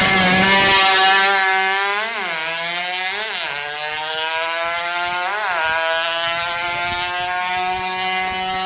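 Yamaha F1ZR 116cc two-stroke drag-bike engine accelerating hard from the launch, its sharp, high-revving note climbing and then dropping at three gear changes, about two, three and five and a half seconds in. It then holds a steady high note as the bike pulls away.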